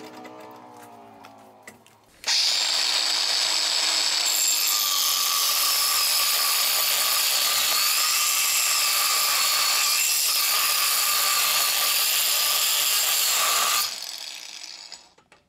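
Angle grinder fitted with a mill slitting saw blade cutting a slot in aluminum bar stock, without coolant: a loud steady high-pitched cutting whine that starts about two seconds in, runs about eleven and a half seconds, then cuts off and dies away as the grinder spins down. The fine teeth are clogging up a little with aluminum.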